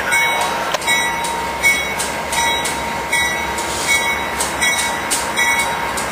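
Amtrak GE P42 Genesis diesel locomotive drawing a passenger train slowly into the station. Its bell rings about once every 0.8 s over a steady high squeal from the brakes and wheels.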